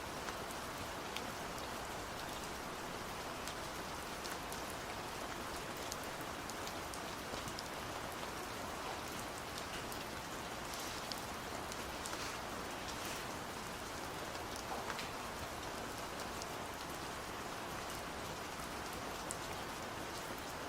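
Steady rain falling, an even wash of noise with scattered individual drops ticking through it.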